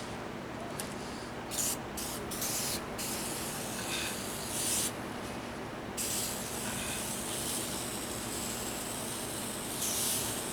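Aerosol can of Easy Off oven cleaner spraying: a few short hissing spurts, then longer sprays with a pause in the middle, as the foam is laid onto an oil stain on concrete.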